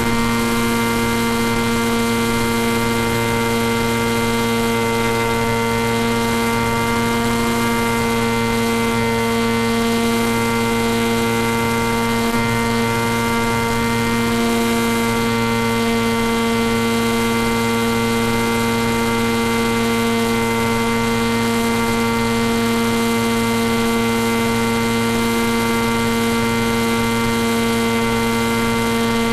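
Steady electric whine at one unchanging pitch with many overtones, from an FPV model plane's electric motor and onboard electronics running at a steady cruise throttle.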